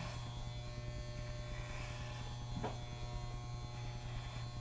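Corded electric hair clippers buzzing steadily as they are run over a man's head, shaving it close.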